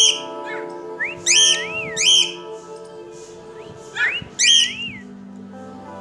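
Cockatiel whistling several short phrases of rising and wavering notes, with the longest ones about a second in and about four seconds in. Steady background music plays underneath.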